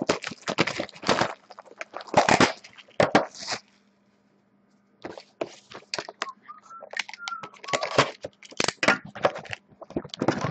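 Cardboard Topps Museum Collection hobby box being handled and opened, a run of crackles, taps and scrapes. They stop for about a second and a half partway through, then resume.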